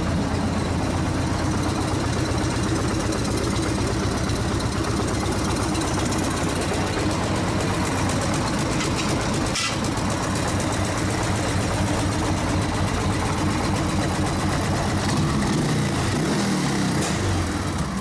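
Car engine idling steadily through side exhaust pipes fitted with auger-style baffles, which make it quite a bit quieter than with the pipes open. There is a single sharp click about ten seconds in.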